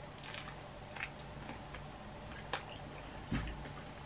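Quiet close-mouthed chewing of a chicken burger, with a few soft mouth smacks and clicks, the sharpest about two and a half seconds in, and a low soft thump a little after three seconds.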